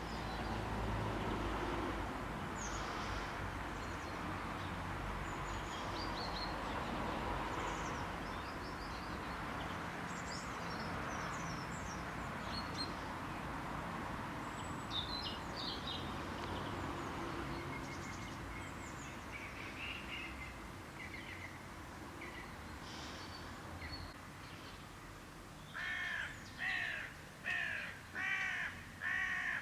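Outdoor background noise with scattered small bird chirps, then near the end five loud animal calls in a row, about one every two-thirds of a second.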